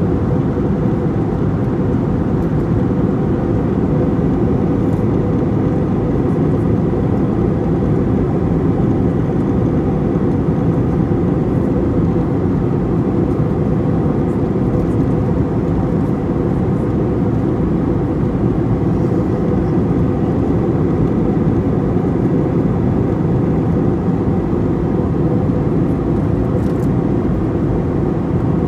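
Airliner cabin noise in flight: a steady, even drone of engines and rushing air, with a faint steady hum running through it.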